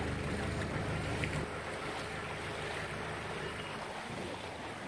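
A boat's motor running steadily, under a wash of water and wind noise.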